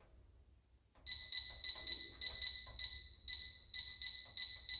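Youdian M2 smart lock's touch keypad beeping once at each key press as a code is entered: a quick, slightly uneven run of short high beeps, about three a second, starting about a second in.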